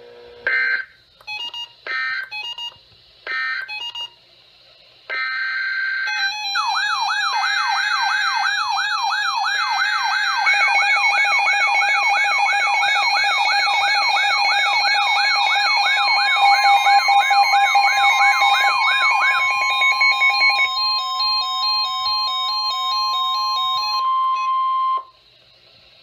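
Several NOAA weather radios going off together for an emergency alert: a few short digital data bursts of SAME code, then a warbling siren from one radio over the steady weather-radio alert tone and rapid beeping from others. The warble stops a few seconds before the rest, which cut off together near the end.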